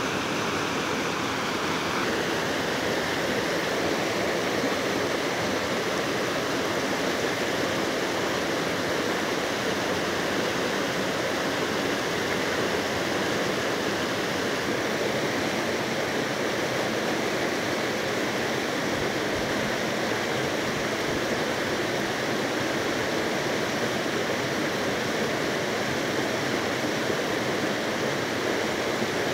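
Shallow river rapids rushing over rocks: a steady rush of white water.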